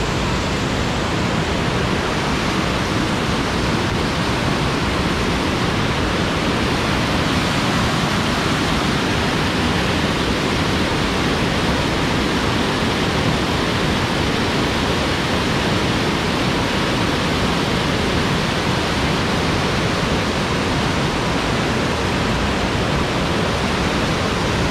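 Steady, loud rush of a fast-flowing stream.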